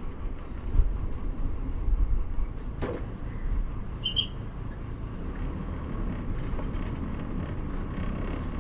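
A moving bus, heard from inside: a steady low engine and road rumble with uneven jolts. There is a sharp knock about three seconds in and a brief high squeak a second later.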